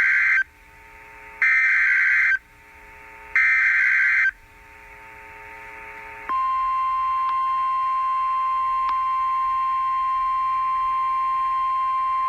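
NOAA Weather Radio alert: three roughly one-second bursts of SAME digital header data, then, about six seconds in, the steady 1050 Hz warning alarm tone begins. Together they announce a newly issued severe thunderstorm warning.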